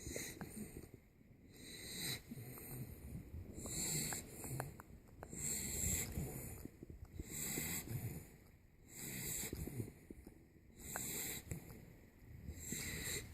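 Ten-week-old Boxer puppy snoring in its sleep, a wheezy snore on each breath about every one and a half to two seconds.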